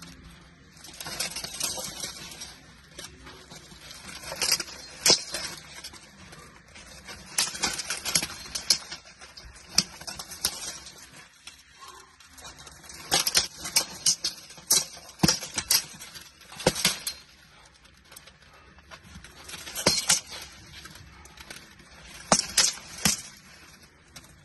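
Armoured sword sparring: sword blows and knocks landing on steel plate armour, coming in several flurries of sharp knocks with quieter stretches between.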